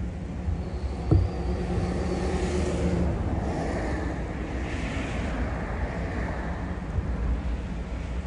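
Diesel freight locomotives running past with a steady low engine rumble, wind buffeting the microphone. A single sharp thump about a second in.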